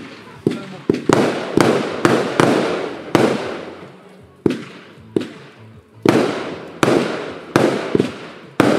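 Fireworks going off: more than a dozen sharp bangs, one every half second to a second, each trailing off in a fading echo.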